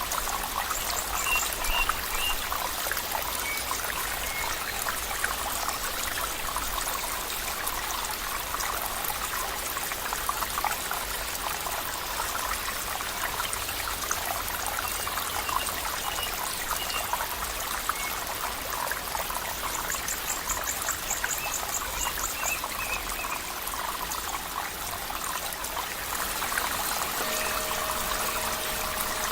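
Water trickling and babbling steadily over rocks in a stream, with a few faint high chirps now and then and a fast chirping trill about two-thirds of the way through. A soft steady musical tone comes in near the end.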